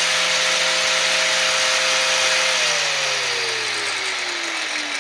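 Bosch GWS 700 mini angle grinder (12,000 rpm) running free with no load, a steady whine; about two and a half seconds in it is switched off and the whine falls steadily as the disc spins down.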